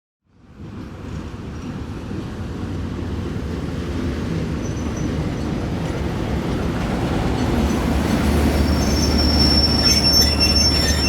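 ChME3 diesel shunting locomotive's six-cylinder diesel engine running under load as it moves cars, with a steady low drone that grows louder throughout. Near the end, a thin high-pitched wheel squeal and short squeaks from the wheels on the rails join in.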